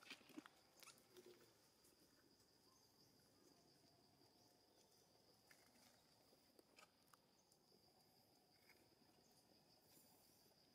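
Near silence: faint outdoor ambience with a steady high-pitched tone throughout and a few soft scattered ticks.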